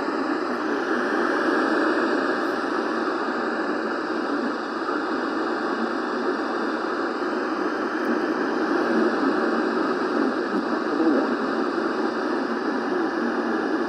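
Radio static: a steady, even hiss from a radio receiver between transmissions, with no voice on the channel.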